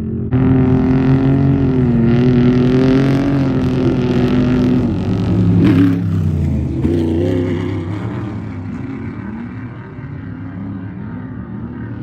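Off-road race vehicle's engine running loud at high revs, its pitch wavering up and down with the throttle. A short sharp hit comes about six seconds in, after which the engine note drops and fades as the vehicle pulls away.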